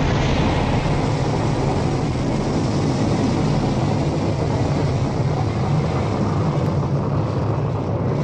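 Jupiter-C rocket's first-stage engine firing at liftoff: a loud, steady rush of noise, heaviest in the low end.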